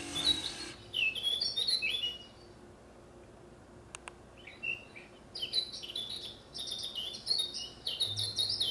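Modern cuckoo clock sounding the hour: a brief mechanical whir as its little doors open, then a songbird song of quick high chirps and trills from the clock, in two phrases with a pause of about two seconds between.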